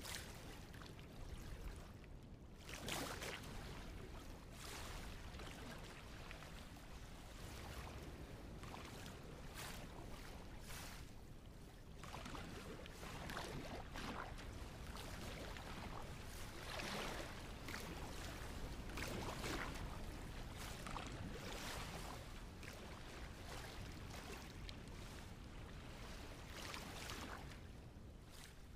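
Water rushing and washing in uneven surges, with a low rumble underneath, like waves breaking and drawing back on a shore.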